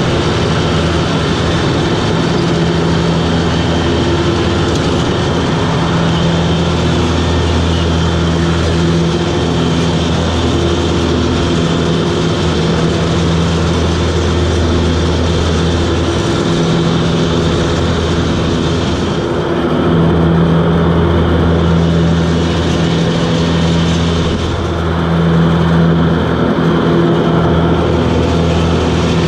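Toro Groundsmaster 7210 zero-turn mower's diesel engine running steadily and loudly under mowing load, with the rotary deck's blades spinning, heard from the operator's seat. Its tone shifts briefly twice in the second half, the hiss easing as the low hum strengthens.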